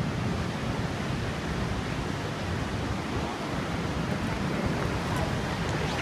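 Steady rush of water cascading over rocks in a forest stream waterfall, with a brief sharp click at the very start.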